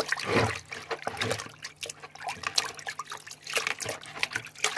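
A hand swishing and squeezing a cotton saree fall in water in a plastic bucket: irregular splashing and sloshing.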